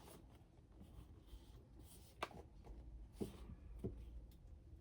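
Near silence with a few faint, soft clicks of hands handling a doll and its plastic packaging, the clearest about halfway through.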